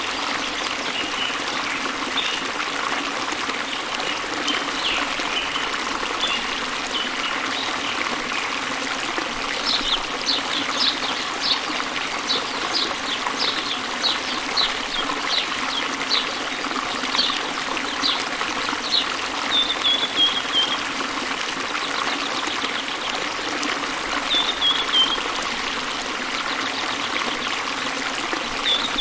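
A small waterfall runs in a steady rush, with birds singing over it. Scattered high chirps come first, then a run of repeated sharp notes at a little under two a second, and later a few short falling notes.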